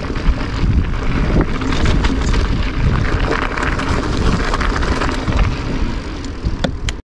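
Wind buffeting an action camera's microphone as a mountain bike rolls fast over dirt and gravel, with a low rumble of the tyres and scattered rattling clicks from the bike, a few sharper ones near the end.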